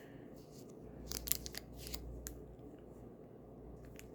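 Scattered small sharp clicks and snips of a miniature plastic toy package being handled and opened, over faint rustling.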